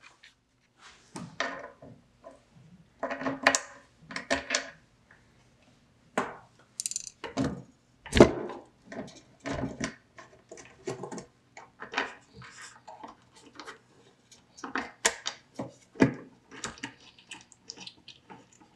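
Small metal telephone parts and a small wrench handled against a wooden case: irregular clicks, clinks and light knocks, some with a short metallic ring, as the ringer coil assembly is fitted back in.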